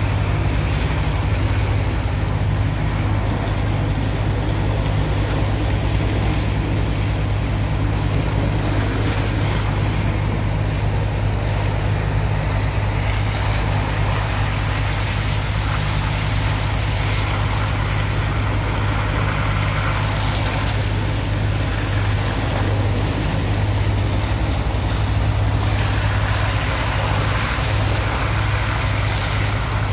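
Steady drone of a pump engine, with the rush and splash of a water hose jet washing sand into slurry.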